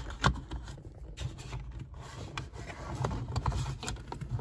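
Plastic trim covers of a rear-view mirror being handled and fitted around the mirror mount: light plastic scraping and rubbing, with a few scattered small clicks.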